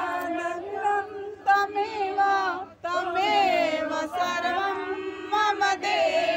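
Women's and children's voices singing an aarti, a Hindu devotional song sung while the lamp is waved, in long held notes with gliding pitch and a short break about two and a half seconds in.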